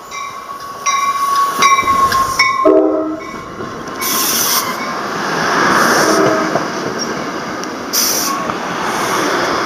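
NJ Transit commuter train pulling into the station with its cab car leading. A bell rings with evenly spaced strikes for the first two seconds or so, a short horn blast comes about three seconds in, then the cars rumble past with two brief hissing bursts.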